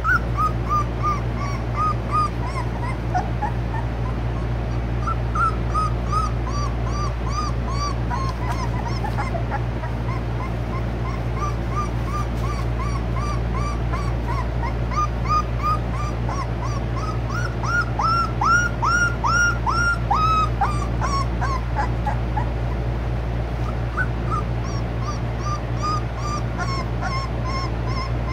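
American Bully puppies whimpering and yelping in short, high, arching cries that come in runs of several at a time, the loudest run a little past the middle. A steady low hum runs underneath.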